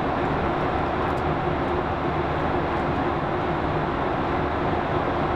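Steady cabin drone of a Boeing 737-800 in cruise flight, a mix of CFM56 turbofan engine and airflow noise, with a faint low hum held underneath.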